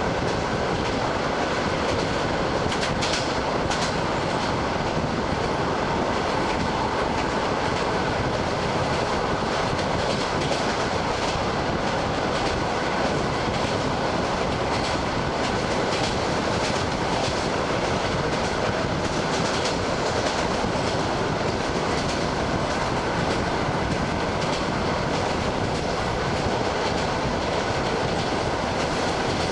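ED9M electric multiple unit running at speed, heard from inside the carriage: a steady rolling rumble with the wheels clacking over the rail joints.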